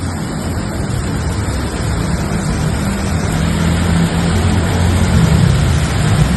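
Floodwater torrent rushing through a street, a loud steady roar with a low hum underneath that grows slightly louder in the second half.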